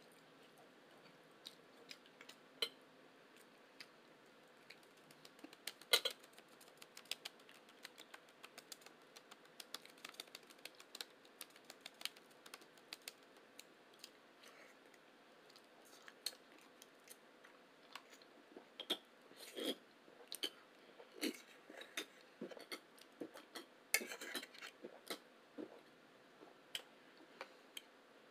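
Chewing and mouth sounds of eating: many small wet clicks and smacks scattered irregularly, busier in the second half.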